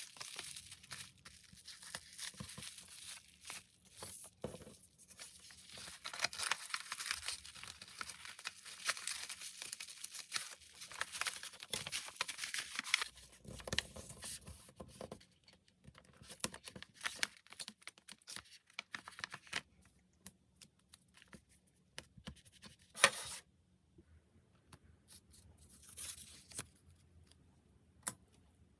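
Packing material being handled: wrapping crinkling and tearing in a dense, crackly run for the first dozen seconds, then scattered handling clicks, with one short louder burst a little past the middle.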